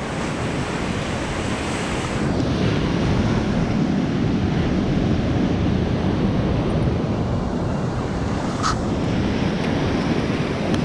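Ocean surf washing onto the shore with wind buffeting the microphone, a steady rushing that grows a little louder about two seconds in. A brief high chirp cuts through near the end.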